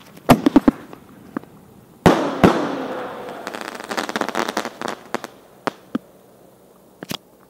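Homemade two-inch aerial firework shells bursting. A few sharp pops come first, then two loud bangs about half a second apart with a long echoing tail. A burst of dense crackling from crackle stars follows, then a few scattered pops.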